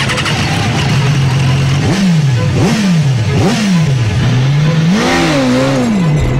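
BMW S1000RR's inline-four engine idling steadily, then revved in quick throttle blips about two seconds in, each rising sharply and falling back, with a longer wavering rev near the end.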